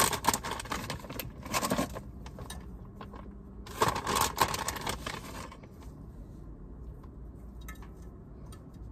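Broccoli florets shaken out of a plastic bag into a cooking pot: the bag crinkles and the florets clatter in, in two bursts, the second about four seconds in. After that come quieter small handling sounds as the florets are pushed down in the pot.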